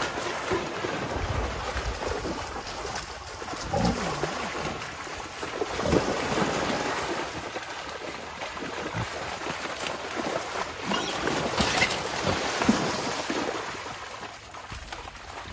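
Splashing and sloshing in wet mud and standing water, with scattered soft knocks.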